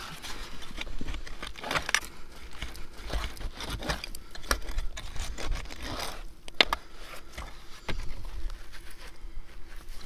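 A hand digging tool scraping and raking through dry privy dirt in repeated irregular strokes, with one sharp tick about two-thirds of the way through.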